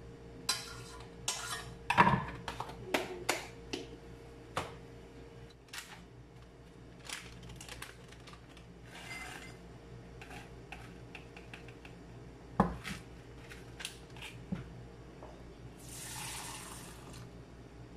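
Kitchen handling sounds: utensils clinking and knocking against an aluminium pot and a drinking glass, in a quick run of sharp knocks over the first few seconds and a few more later. A plastic packet of powdered coconut milk rustles in between.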